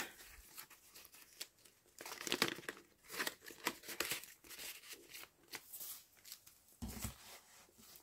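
Paper rustling and crinkling as the layered paper pages, tags and pockets of a handmade junk journal are handled and shifted, in irregular soft bursts, with a soft bump near the end.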